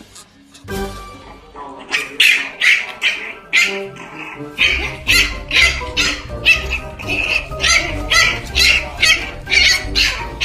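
A puppy yapping over and over, about two or three sharp yaps a second, over background music.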